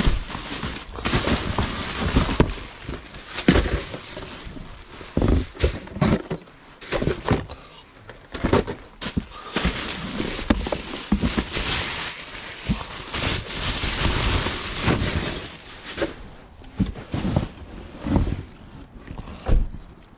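Irregular knocks and thumps, with stretches of rustling, crackling noise in between.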